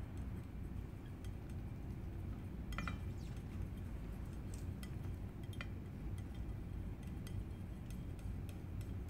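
Faint scattered taps of a paintbrush on a porcelain plate, with one small ringing clink about three seconds in, over a steady low room hum.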